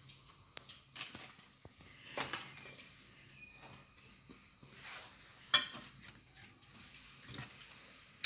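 Scattered light taps, knocks and rustles of food and a bamboo cutting board being handled on a kitchen table, the sharpest knock about five and a half seconds in.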